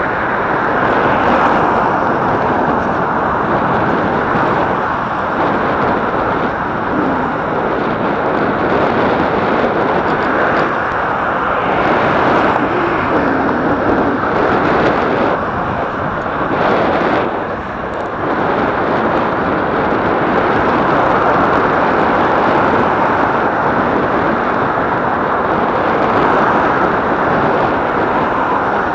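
Wind rushing over the microphone of a camera on a moving bicycle: loud, steady noise with a brief dip about seventeen seconds in.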